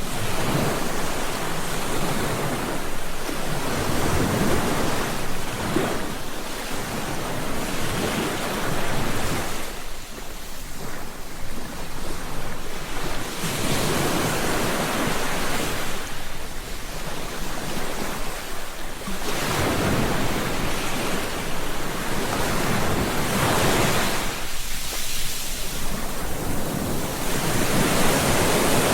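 Ocean waves breaking and washing up a beach, the surf swelling and fading every few seconds.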